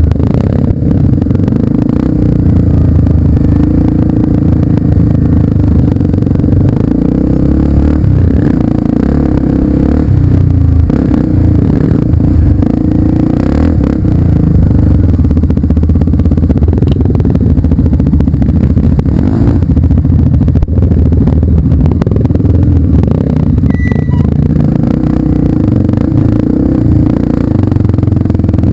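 Off-road trail motorcycle engine running steadily while riding, with rattling and clatter throughout.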